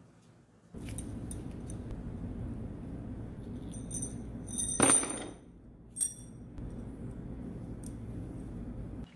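Metal parts clinking: a few light metallic clicks with a high ringing tone, and one louder ringing clatter about five seconds in, over a steady low hum.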